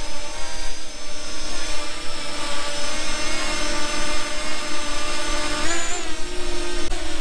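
Small quadcopter drone's propellers whining steadily in several tones, briefly rising in pitch about six seconds in as the motors speed up. Wind rumbles on the microphone underneath.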